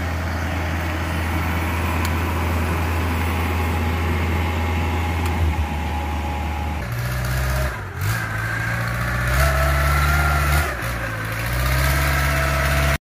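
Yanmar 82 combine harvester's engine running steadily as the machine crawls on its tracks. About seven seconds in the sound changes to the river ferry's long-tail boat engine running, its pitch stepping up and down a few times, before cutting off suddenly near the end.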